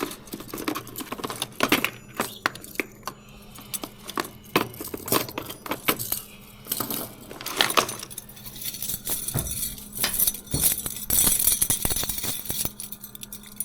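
Irregular clinking and rattling of small metal objects, with many sharp clicks, as fishing gear is handled.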